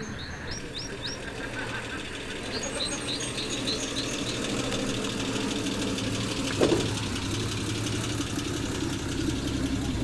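A car engine idling steadily, with a single sharp knock about two-thirds of the way through.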